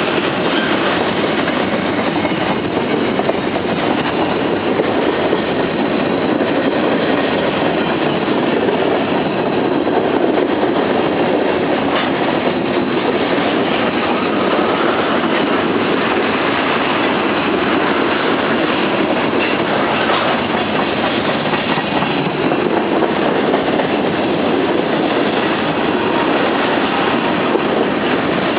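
Freight train cars rolling past, a steady, unbroken rumble and clatter of steel wheels on the rails.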